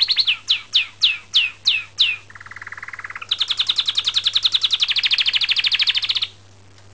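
Orange canary singing a varied song. A fast high trill ends just after the start, followed by six separate downward-sweeping whistles and a lower, quieter trill. Then comes a long, loud, fast trill that stops abruptly about six seconds in.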